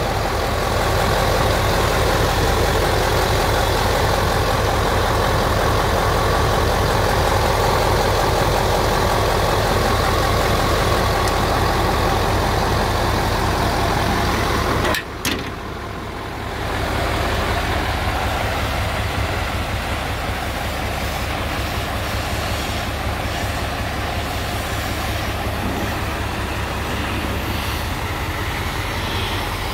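Mercedes-Benz 2628 tipper truck's V8 diesel engine running steadily at idle, heard close up at the engine bay. About halfway through the sound breaks off briefly and then carries on a little quieter.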